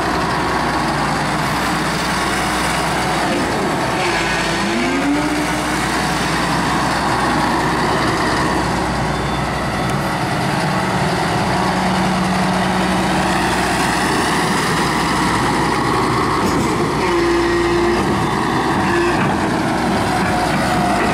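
Hyundai Robex crawler excavator's diesel engine running steadily, with a hydraulic whine: held tones come and go, and one rises in pitch about four to five seconds in.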